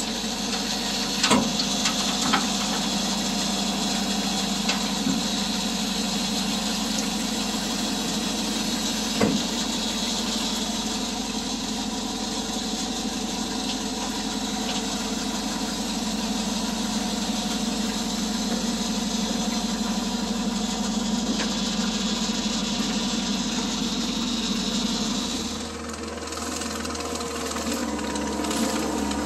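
Old dump truck's engine running steadily while its box is raised, with sharp knocks about a second, two seconds and nine seconds in. Near the end the engine sound gives way to a lower, quieter steady hum.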